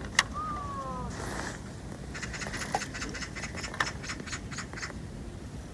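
A bird calling: one short falling whistle, then a rapid chattering run of notes for about two and a half seconds.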